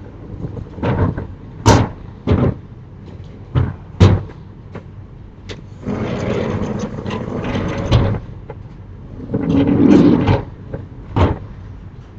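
Sliding storm shutters (amado) being pushed open along their tracks: a series of sharp knocks and bangs, with two longer rumbling, rattling slides about six and nine seconds in.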